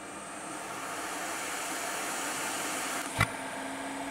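Hot air rework station blowing, a steady rush of air that rises over the first second and then holds. A single sharp click comes about three seconds in.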